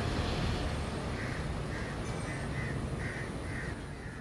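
A bird giving a run of about seven short calls, roughly two a second, starting about a second in, over a steady low rumble.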